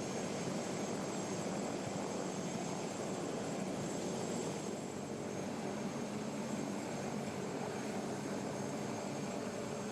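Helicopter running steadily overhead, an even rotor and engine drone with a faint high whine.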